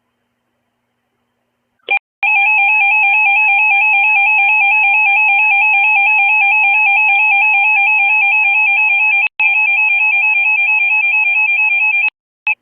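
Emergency Alert System attention signal: a loud, steady two-tone alert that starts about two seconds in and runs for about ten seconds, with one brief dropout partway through, announcing an emergency alert broadcast.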